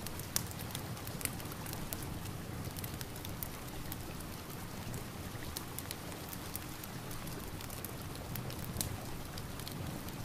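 Steady rain mixed with a crackling fireplace: an even hiss of rain with sharp crackles and pops from the fire scattered through it, a few louder ones just after the start, about a second in and near the end.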